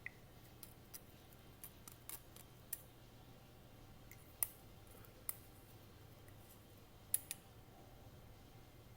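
Scattered sharp clicks and snips, about a dozen at uneven intervals, the loudest about four and a half and about seven seconds in, over a faint steady low hum.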